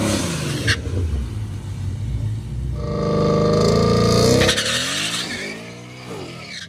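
Drag car's engine at full throttle on the strip, changing pitch through the gears, loudest about three to four and a half seconds in, then dropping in pitch and fading as the car pulls away down the track.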